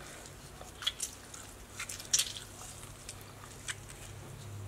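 Half a lemon squeezed by a gloved hand over a steel bowl of water: a few short, scattered squishes and drips, the loudest about two seconds in, over a faint steady low hum.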